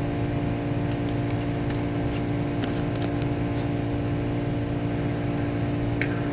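A steady droning hum holding one unchanging pitch, with a few faint soft ticks from baseball trading cards being handled and flipped.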